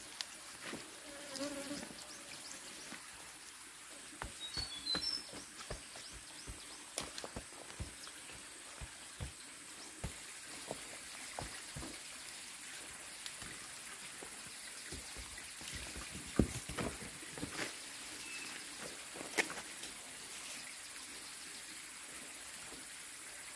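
Outdoor forest sound: a steady high insect drone, a fly-like buzz passing briefly about a second and a half in, and a few short bird chirps around five seconds. Scattered clicks and knocks run throughout.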